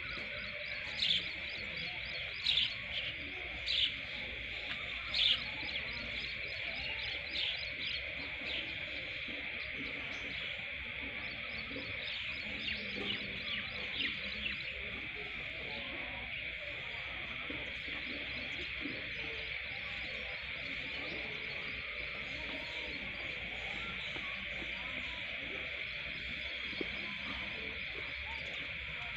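Outdoor insect chorus, a steady high-pitched drone, with bursts of short bird chirps in the first few seconds and again around the middle.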